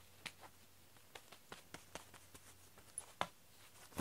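Faint, irregular light clicks and taps of a cat moving about and playing at a feather toy on a foam floor mat, with a louder tap a little after three seconds in.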